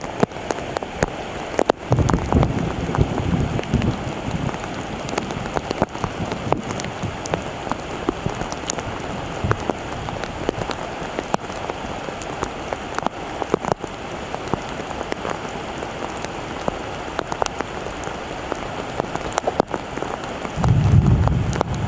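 Steady rain falling, an even hiss with many small drop impacts. A low rumble comes in about two seconds in and again near the end.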